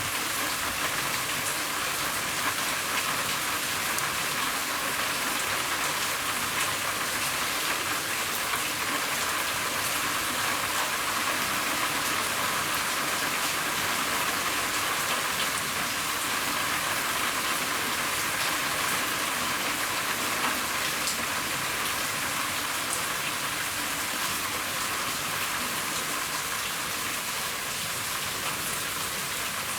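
Steady rain falling on a roof: a continuous even hiss with scattered faint drop ticks.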